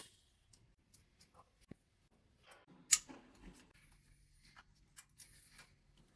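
Scattered small clicks and taps of a screwdriver and screws as the screws on the printer's front cover are taken out, with one sharper click about three seconds in.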